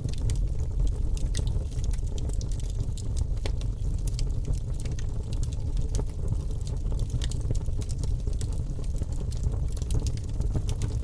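Wood fire in a fireplace crackling, with frequent irregular sharp pops and snaps over a steady low rumble of the flames.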